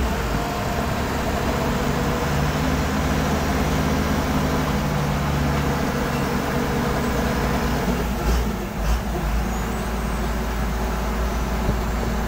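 Excavator diesel engine running steadily, with a couple of brief knocks about eight seconds in.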